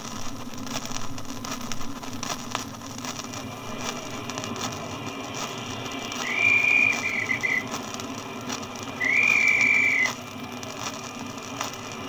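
Old disc recording of a train played back through a record player's speakers: steady surface hiss and crackle, then two blasts of the locomotive's whistle, one about six seconds in lasting over a second and a shorter one about nine seconds in.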